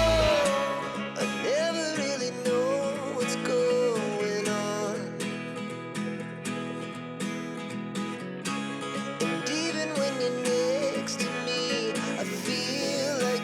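Background music: sustained instrumental tones under a melody line that bends in pitch.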